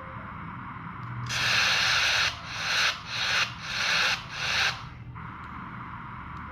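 Rubbing or scraping strokes on a surface: one longer stroke, then four shorter ones in quick succession, over a low steady background hum.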